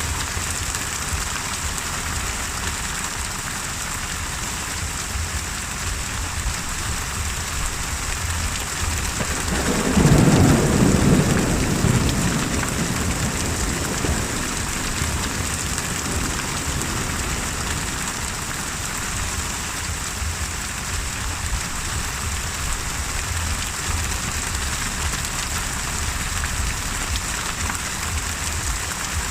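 Steady heavy rain pouring, with one long roll of thunder that swells about ten seconds in, peaks for a couple of seconds and rumbles away over the next few seconds.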